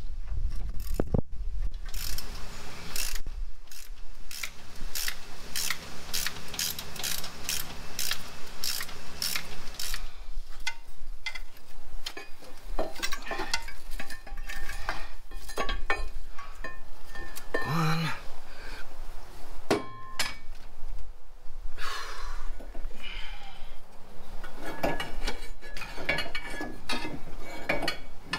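Socket ratchet wrench clicking in runs of rapid clicks, with pauses and scattered knocks between, as the exhaust manifold and Y-pipe fasteners are worked loose on a V8.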